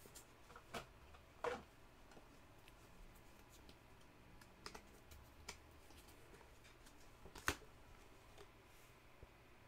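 Faint, scattered clicks and taps of trading cards and plastic card sleeves and holders being handled and set down, the sharpest click about seven and a half seconds in.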